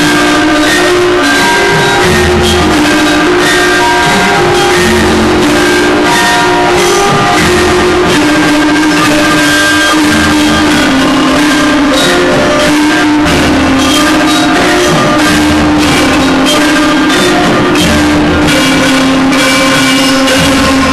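Gamelan ensemble playing a piece together: bronze keyed metallophones ring out a melody of sustained, overlapping notes, with a deep stroke sounding every two to three seconds.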